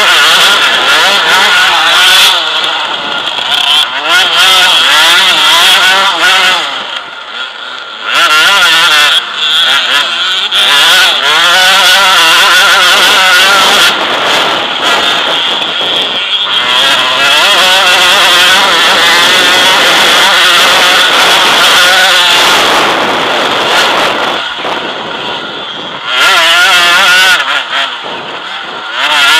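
Enduro motorcycle engine heard from on the bike, revving hard and rising and falling in pitch as the rider accelerates and shifts along a dirt track. It eases off briefly about a quarter of the way in, then pulls hard again.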